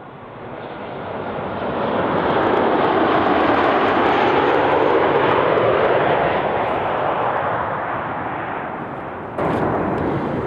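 Twin-engine jet airliner's turbofan engines passing low overhead on landing approach: a steady, noisy rumble that swells to a peak and then slowly fades as the plane goes by. Near the end the noise jumps up abruptly.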